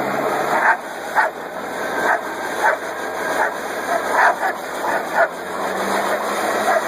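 Dog barking in short, sharp yaps, one every half second to second, over a steady whooshing noise, as it goes after a broom or vacuum cleaner.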